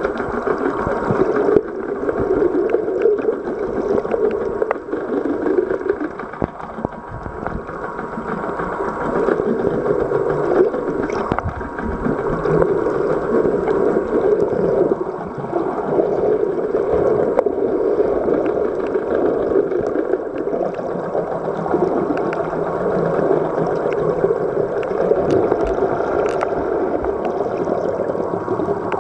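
Steady rushing water noise heard underwater, with a faint steady hum and scattered faint clicks.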